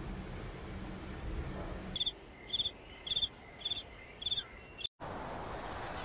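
Bush cricket chirping: a run of short, high chirps, then from about two seconds a lower, buzzier series of five chirps about half a second apart. It cuts off just before the five-second mark and gives way to a steady hiss.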